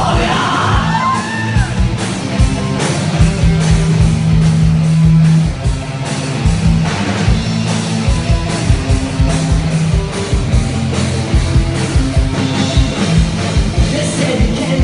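Rock band playing loud and live: drums hitting in a fast steady beat under held bass notes and guitar, with a singer's yelled vocal line in the first couple of seconds.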